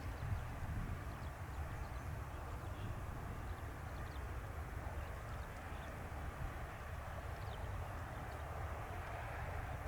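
Boeing 737-800's CFM56 jet engines running at taxi idle, a steady distant whoosh, with wind buffeting the microphone.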